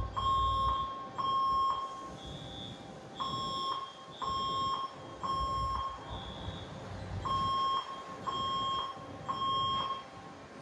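Fire alarm sounding the temporal-three evacuation pattern: groups of three steady beeps, each about half a second long, with a pause between groups. A second, higher-pitched tone beeps out of step with the first, as from more than one alarm device.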